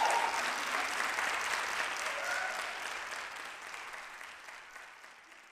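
Audience applauding at the end of a dance performance, the applause dying away steadily.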